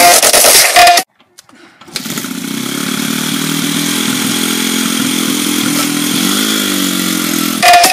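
Small Honda CRF dirt bike's single-cylinder four-stroke engine idling steadily, coming in about two seconds in, with one brief rise and fall in pitch near the end. Loud music plays in the first second and cuts back in at the very end.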